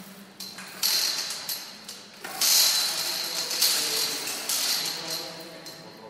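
Heavy chains rattling as they are pulled down to hoist a truss: about four bursts of metal clatter, a second or so apart, each dying away.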